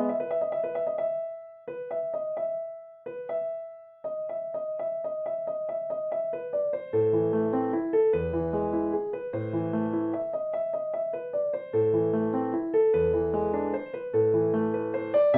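Background piano music: sparse repeated notes with short pauses at first, then fuller chords with a steady bass line from about seven seconds in.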